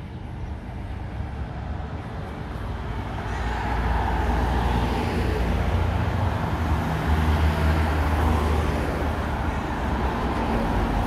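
Road traffic: vehicles on a city street running and passing with a low engine rumble, growing louder about three seconds in.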